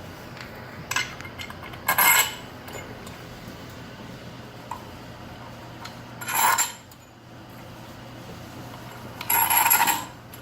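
Small metal table parts clinking and scraping together as they are handled and fitted, in a few short bursts: a brief pair about one and two seconds in, another around six and a half seconds, and a longer rattle near the end.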